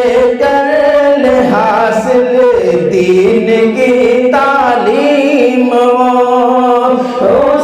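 A man chanting a line of an Urdu naat in a melodic, sung style into a microphone, holding and bending his notes through the phrases.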